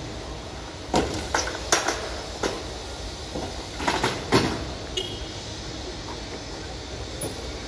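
City street ambience: a steady hum of the surroundings with a series of sharp, irregular clicks, clustered about a second in and again around four seconds.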